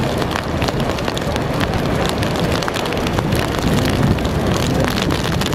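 Strong wind buffeting the microphone over the wash of surf breaking on a rock jetty: a loud, steady rush with frequent crackles.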